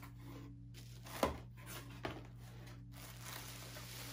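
Packaging rustling and crinkling as a pre-cut parcel is opened and a bubble-wrapped item is handled, with a sharp knock about a second in and a lighter one about two seconds in.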